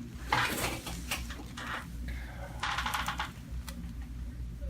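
A few separate sharp pops of spinal joints cracking under a chiropractic adjustment.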